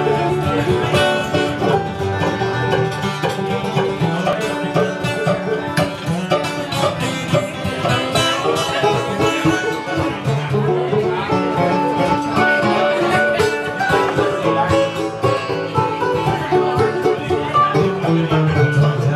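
Live bluegrass trio playing an instrumental passage: banjo picking over strummed acoustic guitar and mandolin, without singing.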